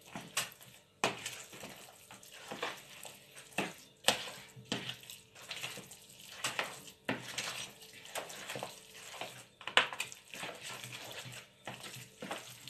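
Spoon stirring raw minced meat in a plastic bowl: irregular scrapes and clinks of the spoon against the bowl, with one sharper knock about ten seconds in.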